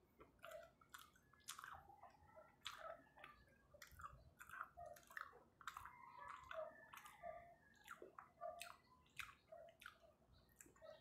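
Faint close-up chewing of chocolate moron, a soft sticky-rice cake, heard as a quick, irregular run of small mouth clicks.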